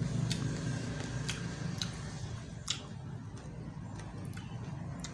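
Eating sounds: a metal spoon working food on a banana-leaf plate, with a handful of short sharp clicks, the loudest about two and a half seconds in, over a steady low hum.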